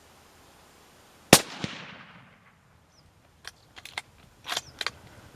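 A single hunting rifle shot about a second and a half in: a sharp crack whose echo rolls away over about a second. A few faint clicks and knocks follow.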